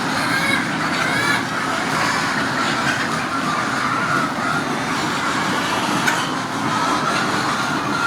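A large flock of chickens calling together: a continuous din of overlapping clucks and wavering calls.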